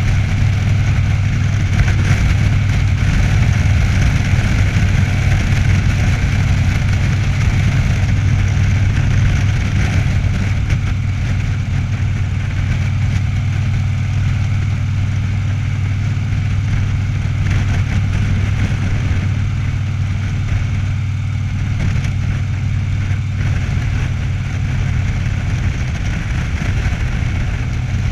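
Cruiser motorcycle engine running steadily at road speed, with a constant rush of wind over the microphone.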